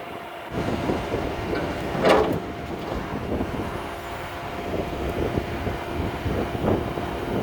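Cat 299D2 compact track loader's diesel engine running, getting louder about half a second in, with a steady whine over it. A brief sharp noise cuts through about two seconds in.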